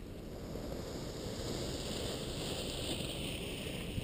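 Wind blowing across the microphone of an action camera lying in the grass: a steady low rumble, with a hiss that sinks in pitch in the second half.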